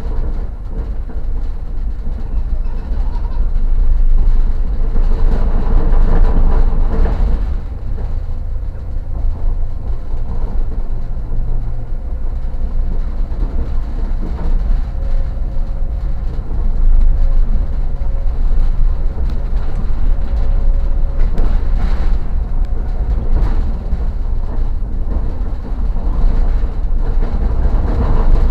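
A moving passenger train heard from inside the carriage: a steady low running rumble with a faint hum, swelling louder twice.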